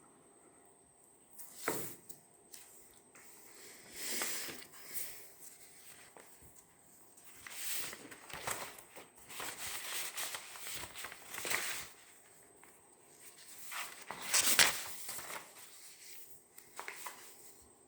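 Paper being handled: several rustling, crinkling swishes of about a second each, the loudest a little past the middle, over a faint steady high cricket tone.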